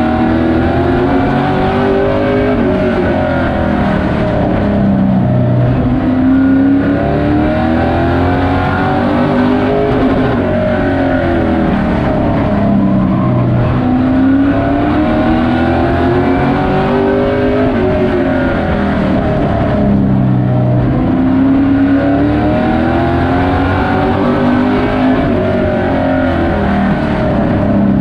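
Short-track race truck's engine heard from inside the cab, running under race load. Its pitch rises and falls over and over every few seconds as it accelerates down the straights and lifts for the turns, lap after lap.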